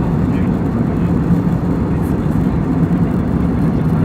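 Airliner cabin noise: the steady low drone of the engines and airflow heard from inside the plane, with a hum underneath.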